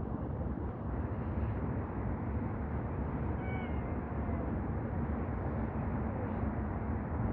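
Cat meowing, with the clearest call about three and a half seconds in, over a steady low background rumble.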